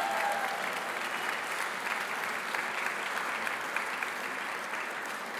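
Audience applauding steadily: many hands clapping together in a large room.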